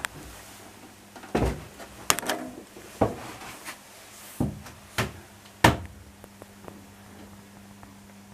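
Irregular knocks and bumps, about six in the first six seconds, from someone moving about in a boat's engine room, over a faint steady hum.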